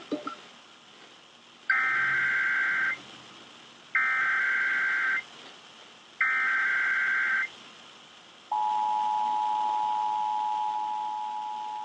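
Emergency Alert System test header: three bursts of data tones about a second long, two seconds apart, followed by the steady two-tone EAS attention signal that starts about eight and a half seconds in and holds, slowly getting quieter.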